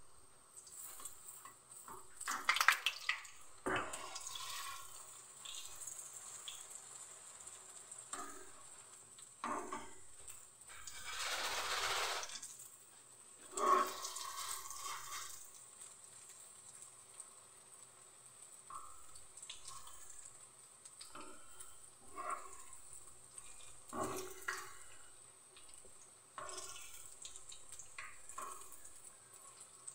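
Muri pakoras (puffed-rice fritters) deep-frying in hot mustard oil: a steady bubbling sizzle. Irregular louder bursts and knocks come and go as a spoon turns the fritters in the pan.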